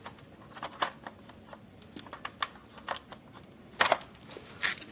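Scattered light clicks and taps from hands handling the washing machine's wiring and plastic parts, with the sharpest couple of clicks near the end.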